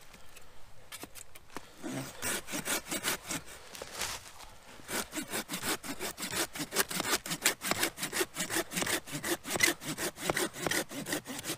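Hand saw cutting through wood in quick back-and-forth strokes, starting about a second in, pausing briefly near four seconds, then running on at about four strokes a second.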